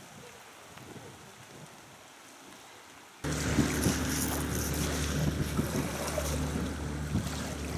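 A faint low background, then about three seconds in a boat engine's steady hum cuts in abruptly, with wind buffeting the microphone and water noise.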